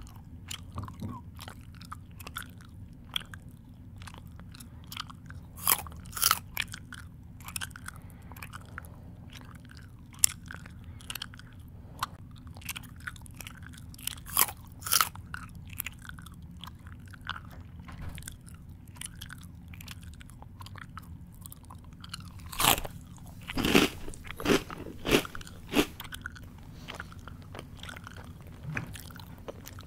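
A person chewing noisily close to the microphone, with irregular sharp crunches and mouth clicks over a faint steady low hum. A louder run of crunches comes about 23 to 26 seconds in.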